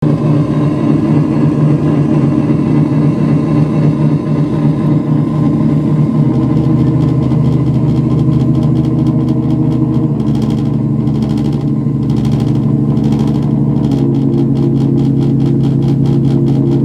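Loud electronic drone from a synthesizer played live: held low notes that step to a new pitch every few seconds, with a rapid pulsing texture layered on top in the middle stretch.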